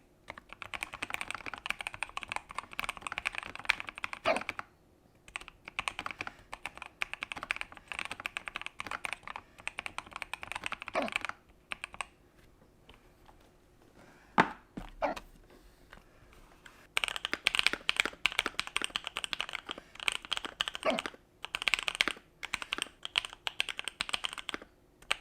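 Fast typing on a computer keyboard in long runs of clicks, with a pause about halfway through. A few short hiccups break in, two close together during the pause, and these are the loudest sounds.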